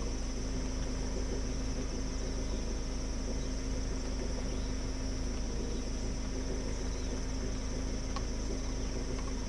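Steady high-pitched chorus of insects such as crickets, unbroken throughout, over a low steady hum.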